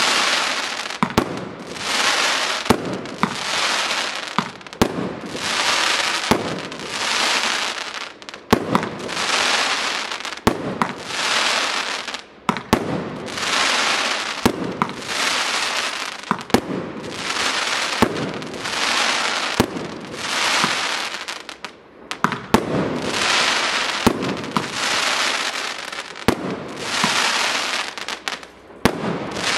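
Fireworks cake firing a steady barrage, about one shot every one and a half seconds: each launch thump is followed by roughly a second and a half of crackling from the bursting stars.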